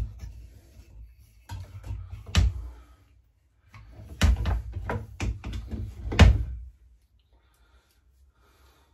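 Knocks and clunks from a Partner K650 cut-off saw being handled and its front handle worked, several sharp knocks in two clusters, the second and loudest between about four and six and a half seconds in.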